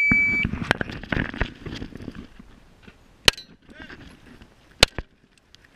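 Shot timer's start beep, a single high tone about half a second long, followed by the rustle of the shooter moving in a car seat and a few sharp cracks later on.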